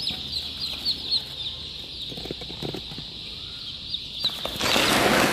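A flock of young chicks peeping, many short high cheeps overlapping without pause, with a few low clucks from the hen about two seconds in. A loud rustling burst comes near the end.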